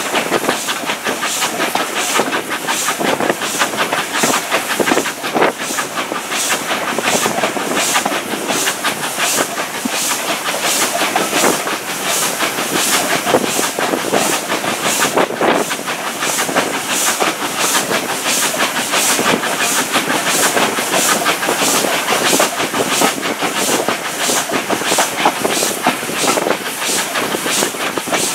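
Steam train running at speed, heard from an open carriage window: an even rhythm of hissing exhaust beats, about two a second, over steady wheel and rail noise.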